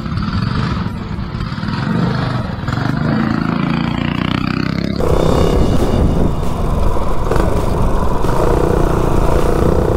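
Coleman mini bike's small single-cylinder four-stroke engine running; about halfway through it turns suddenly louder and steadier as the bike is ridden.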